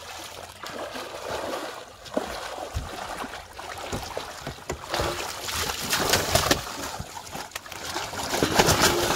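Water splashing and streaming off a cast net as it is hauled out of the water with big fish in it, then the fish and net dropping into the boat onto a plastic tarp. The fish flap in the wet net, and the splashing gets louder in the second half.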